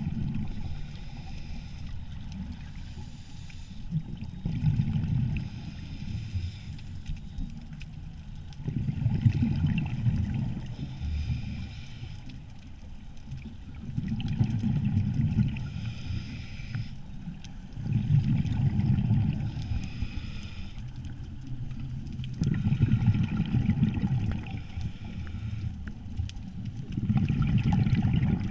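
Scuba regulator breathing heard underwater: a diver's exhaled bubbles gurgling in bursts about every four to five seconds, a steady breathing rhythm.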